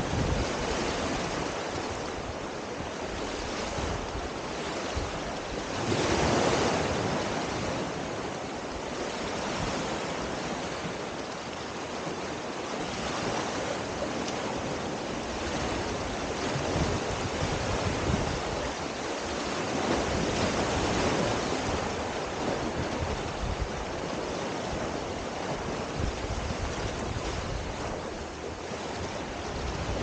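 Small waves washing up and drawing back on a sandy shore, swelling every few seconds with the loudest wash about six seconds in, with some wind on the microphone.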